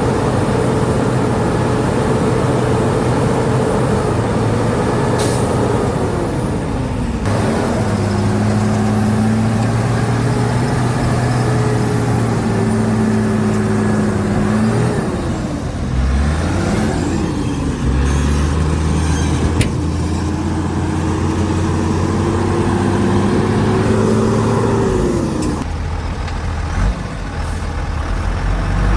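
Heavy diesel engine of a Shantui DH17C2 bulldozer running under varying load, its pitch sagging and recovering several times. The engine note shifts abruptly about seven seconds in and again near the end.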